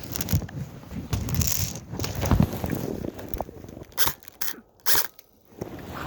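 Airsoft guns firing a few short, sharp shots about four to five seconds in, over rustling and gear-handling noise.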